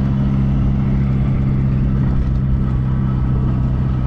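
Small British MG Midget sports car driving, heard from inside the open cabin: a steady four-cylinder engine drone under road and wind noise.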